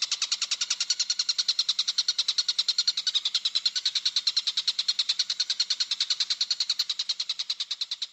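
Lovebird singing a long, unbroken 'ngekek' chatter: a rapid, even run of high notes at about ten a second that goes on without a pause.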